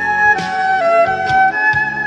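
Background music: a melody on violin or flute-like instrument over a steady percussive beat.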